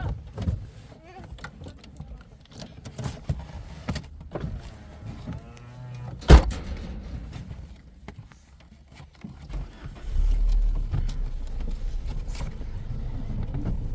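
A car being got into: scattered clicks and knocks, and one sharp car-door slam about six seconds in. From about ten seconds in, a low, steady car engine rumble comes in and runs on.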